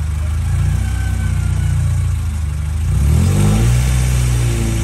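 2000 Acura Integra GSR's DOHC VTEC four-cylinder idling steadily, freshly started and running smoothly. About three seconds in the engine speed climbs quickly and then holds at a higher, steady idle.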